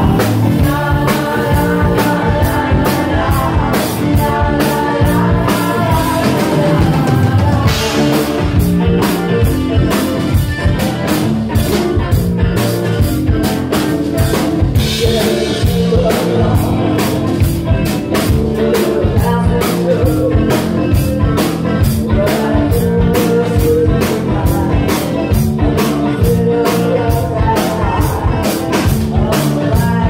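Live rock band playing loud: a woman singing over a drum kit keeping a steady driving beat, with electric guitar.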